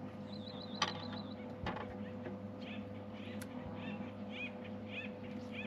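Birds chirping in short repeated calls, about two a second, over a steady low hum, with a quick ticking trill and two sharp knocks in the first two seconds.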